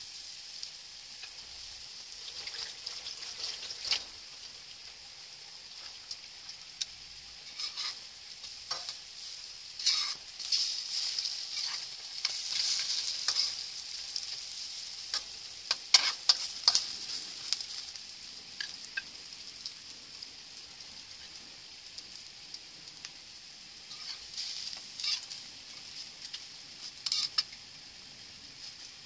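French toast (egg-dipped bread slices) frying in margarine in a wok, with a steady sizzle. A metal spatula knocks and scrapes on the wok now and then as the slices are turned.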